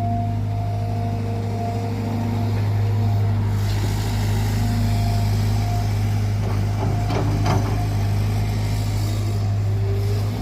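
Cat 320GC hydraulic excavator running under work, its diesel engine holding a steady low drone with a steady whine above it. It grows a little louder from about four seconds in, and a few short clanks come around seven seconds in.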